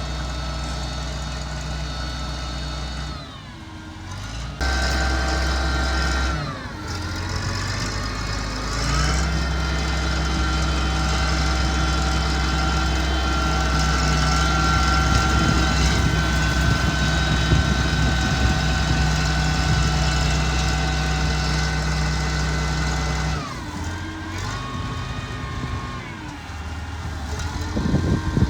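Motor grader's diesel engine working under changing revs. Its note drops a few seconds in, climbs again and holds steady at higher revs for a long stretch, then falls back near the end. A short clattering comes at the very end.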